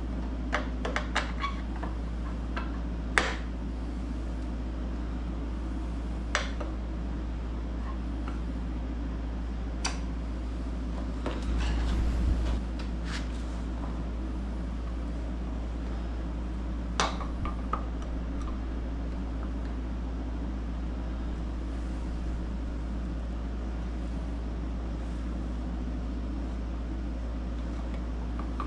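Scattered sharp clicks and taps of a screwdriver working against a MerCruiser sterndrive gimbal housing as a bent aluminium retaining nail is pried out of its pivot pin. Most clicks fall in the first half, with a brief rumbling knock about twelve seconds in, over a steady low hum.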